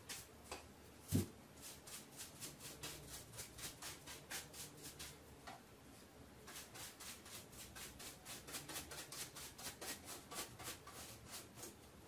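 Paintbrush bristles brushing dust out of a Roomba 600-series pleated filter in quick, repeated strokes, about five a second, faint. There is one louder knock about a second in.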